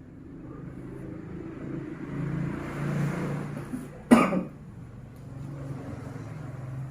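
A single sharp cough about four seconds in, the loudest sound, over a motor vehicle going past that swells and fades around it.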